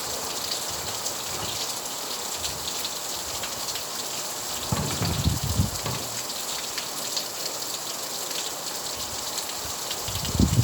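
Steady rain falling, an even hiss with many fine drop ticks. A brief low rumble comes about halfway through and another at the very end.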